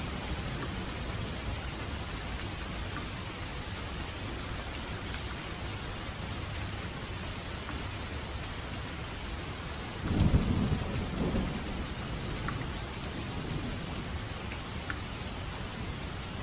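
Steady light rain falling, with a short low rumble of thunder about ten seconds in that swells and fades over a couple of seconds.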